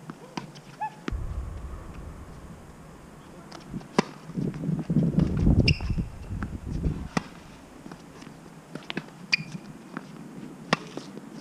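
Tennis ball struck by rackets on a hard court: three sharp hits about three seconds apart, with short shoe squeaks and footsteps on the court between them. A louder stretch of low rumbling noise runs through the middle.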